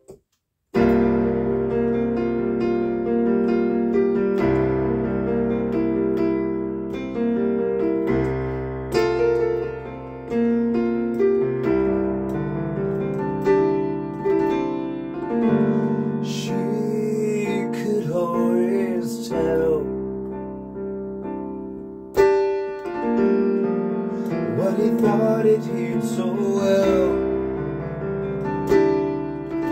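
Piano music played on a Yamaha electronic keyboard: held chords and melody of a slow singer-songwriter piece, starting just under a second in.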